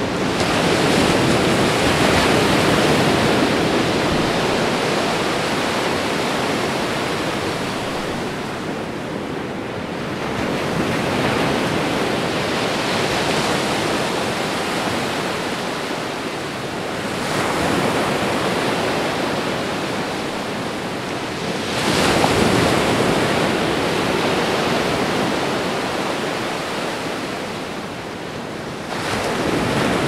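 Ocean surf: a continuous rush of waves that swells and eases, a new wave surging in about every five to seven seconds.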